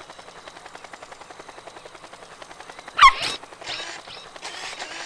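Cartoon propeller backpack whirring, a quiet even chopping of about eight beats a second. About three seconds in comes a short, loud, high call that drops in pitch, followed by a few hissy swishes.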